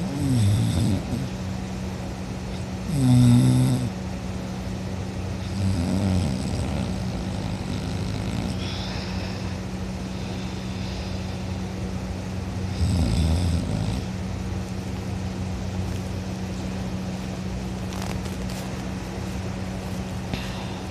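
A person snoring loudly in sleep, a series of snores a few seconds apart with the loudest about three seconds in. A steady low hum runs underneath.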